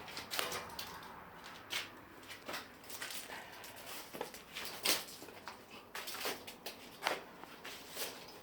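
A series of short, irregular scuffs and rustles at uneven spacing.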